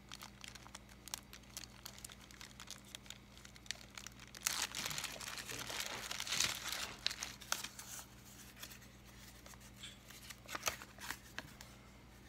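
Packaging being crinkled and handled, with scattered small clicks and a denser stretch of crinkling from about four and a half to eight seconds in.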